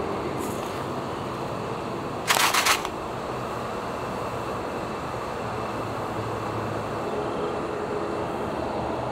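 Steady background noise, with a brief burst of crackly packaging rustle about two seconds in as the foil sachet and pouch are handled.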